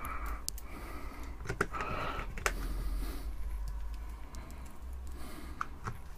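Scattered sharp clicks and taps of a hair straightener's plastic housing and cover being handled and fitted on, with short scraping rustles in between.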